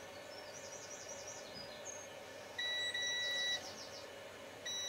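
Digital multimeter in continuity mode beeping as its probes touch connected points on the e-bike battery's connector pins. A steady high beep lasts about a second in the middle, and another starts just before the end; each beep signals that the two probed points are connected.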